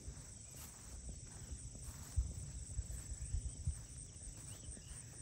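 Steady high-pitched insect chirring in a field, with irregular low rumbling thumps on the microphone from about two seconds in.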